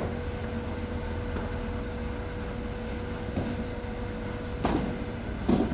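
Padel rally: a padel ball struck back and forth with solid padel rackets, sharp pops a second or two apart, over a steady low rumble.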